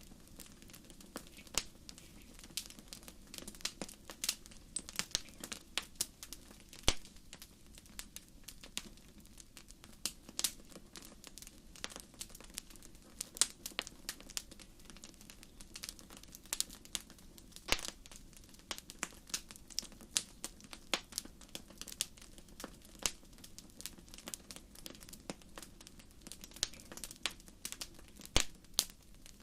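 Wood fire crackling in a fireplace: irregular sharp pops and snaps, some louder than others, over a steady low background noise.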